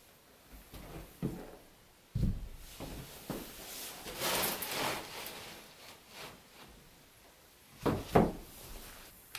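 Durock cement board being laid on a plywood subfloor: thuds as the sheet comes down a couple of seconds in, a scraping slide in the middle as it is shifted, then two louder knocks near the end as it is set in place.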